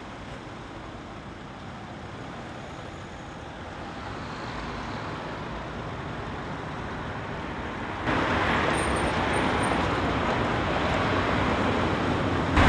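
Road traffic noise: a steady wash of cars and vans on a busy, congested street. It grows slowly, then jumps louder about eight seconds in, when the traffic is close by.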